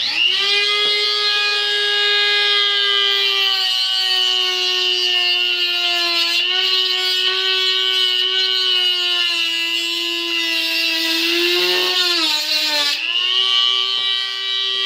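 High-speed rotary tool running with a steady whine as it trims away a piece of trim. Its pitch sags a few times under load, most deeply about three-quarters of the way in, then recovers.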